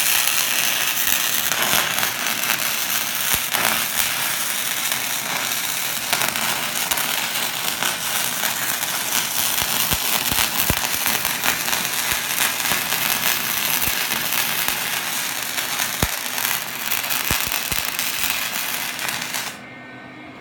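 Lincoln MIG welder running flux-core wire: a steady crackling arc as a bead is laid, stopping abruptly near the end.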